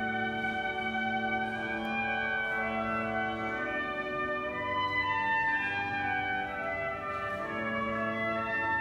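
Pipe organ playing full, sustained chords that change every second or so.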